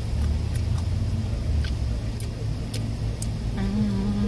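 Steady low rumble of a car heard from inside the cabin, with a few faint clicks. Near the end a steady low-pitched tone sounds for about a second.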